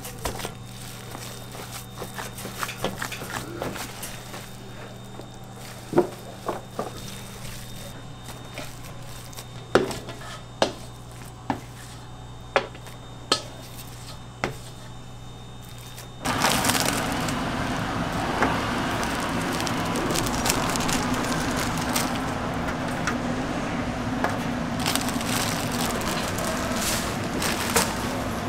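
Gloved hands squish and pack a soft potato-and-egg croquette filling into a plastic tub, over a steady low hum, with several sharp knocks spaced a second or so apart. About sixteen seconds in, this cuts to a louder, steady, noisy background with occasional clicks.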